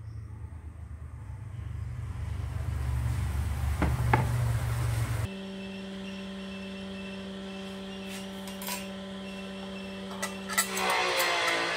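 Scroll saw running as it cuts through wood, a low rumble that grows louder and then cuts off abruptly about five seconds in. Steady held tones of background music follow, with changing notes and light metal clinks near the end.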